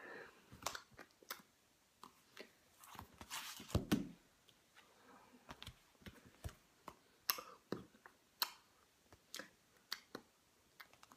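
Scattered soft clicks and taps with a few short rustles, irregular and unpitched: handling noise close to the microphone.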